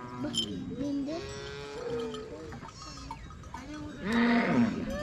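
A herd of long-horned cattle lowing, with several calls overlapping. The loudest is a long moo about four seconds in.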